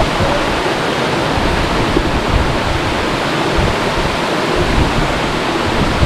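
The Cascata del Botto waterfall rushing steadily, a constant even roar of falling water.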